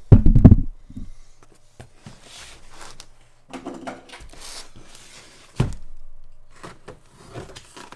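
A heavy thump as the camera is set down, then a cardboard shipping box being slid and handled on a workbench, with another sharp thump a little past the middle as it is stood on end. Near the end comes the scratching of a utility knife cutting the packing tape on top.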